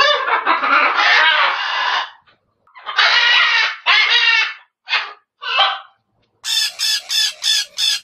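Chicken calls: one long call of about two seconds, then after a short pause several shorter calls, and a quick run of short, sharp notes near the end.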